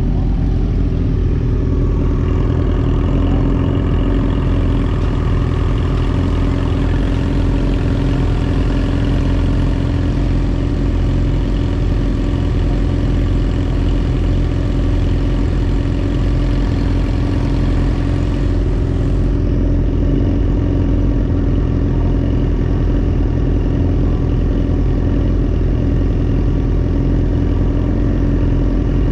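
A vehicle's engine running at a steady pitch over a heavy low rumble.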